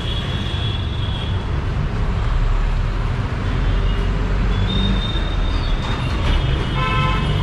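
Busy street traffic: a steady rumble of engines and road noise.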